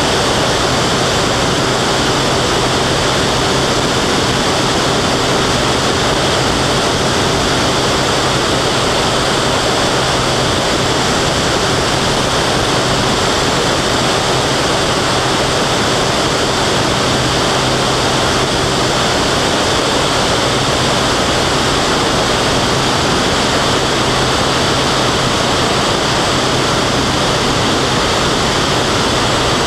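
Steady rush of wind buffeting an externally mounted camera on a small aerobatic airplane in flight, with the aircraft's engine and propeller droning steadily underneath.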